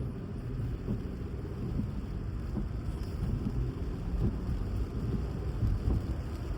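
A car driving in the rain, heard from inside the cabin: steady low rumble of engine and tyres on the wet road, with scattered small taps.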